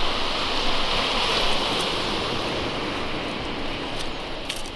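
Steady rushing noise of surf on a shingle beach, with a few sharp clicks near the end as pliers work the barb off a stingray's tail.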